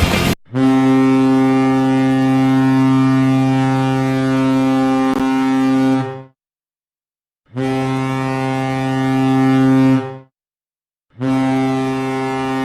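Hockey arena goal horn sounding three long blasts of a steady, deep tone: the first about six seconds, the next two about two and a half seconds each, with pauses of about a second between.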